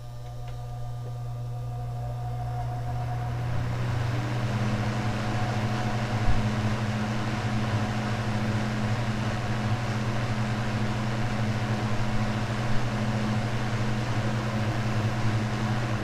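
Vintage Eskimo Model 12106 box fan running on high, its freshly oiled three-speed motor humming as the blades spin up over the first few seconds to a steady rush of air. A light thump about six seconds in.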